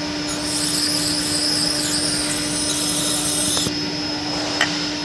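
WD-40 aerosol sprayed in a hiss lasting about three seconds into a removed petrol fuel injector to test it for leaking. A steady low hum runs underneath, and a short click comes near the end.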